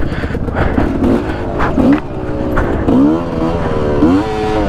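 MXF enduro dirt bike's engine revving in short throttle bursts, its pitch rising sharply three times, about two, three and four seconds in, with scattered knocks from the bike over rough ground.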